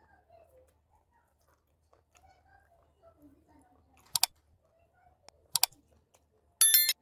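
Close-miked eating: soft chewing and mouth sounds, then two sharp crackling smacks about a second and a half apart, and a louder crackling burst of about a third of a second near the end.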